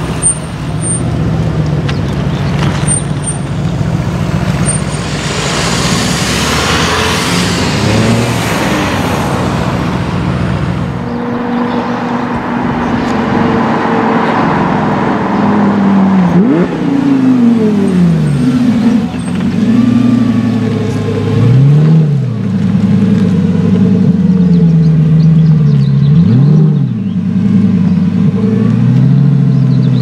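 Mercedes-AMG twin-turbo V8s rumbling and accelerating away, with a loud rush of engine sound about seven seconds in. Then a Lamborghini Gallardo Spyder's V10 runs at low speed and is revved sharply several times.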